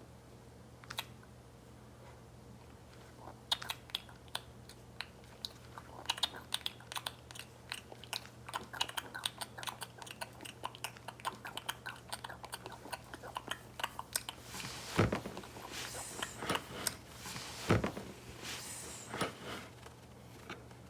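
Feed-me puppy toy being handled: many rapid small plastic clicks and crunches that grow busier a few seconds in, with two louder knocks near the end.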